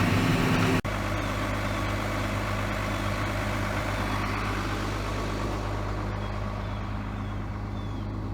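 Heavy farm or truck engine running steadily, a low even hum with no change in speed, broken by an abrupt cut about a second in. Faint short high chirps sound over it in the second half.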